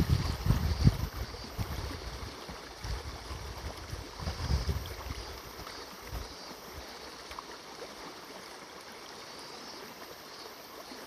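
River water flowing steadily, with cicadas shrilling in a high band above it. Low rumbling buffets on the microphone through roughly the first half, then stop.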